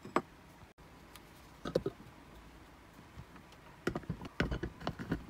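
Plastic clicks and knocks of a Newwave mini chopper's lid and motor unit being set onto its glass bowl of roasted peanuts: a few single clicks, then a quick run of clicks near the end. The motor is not running.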